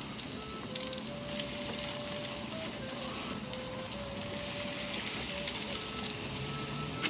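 Chicken frying in hot coconut oil: a steady sizzle.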